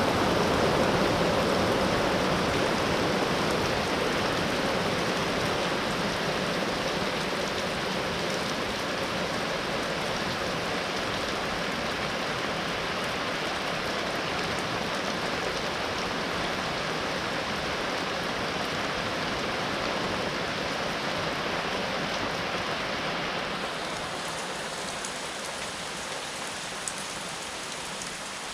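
Steady rain falling. About three quarters of the way through it changes to a lighter, crisper patter with a few single drop ticks.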